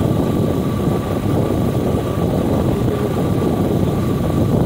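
A vehicle driving along a paved road: engine and road noise with heavy wind rumble on the microphone, and a steady thin whine over it.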